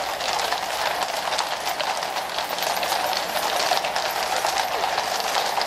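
Shod hooves of many cavalry horses clip-clopping on the asphalt road as a mounted column trots past, a dense, continuous clatter of hoofbeats.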